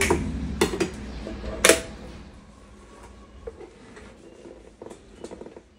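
Stainless steel tiffin containers clinking and knocking as they are handled and packed into a lunch bag. A few sharp clinks come in the first two seconds, the loudest just under two seconds in, then only faint knocks near the end.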